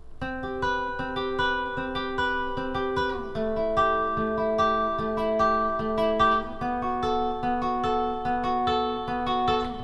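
Nylon-string silent guitar fingerpicking a repeating three-note arpeggio on the top three strings. The chord shape moves to a new position about three seconds in and again near seven seconds.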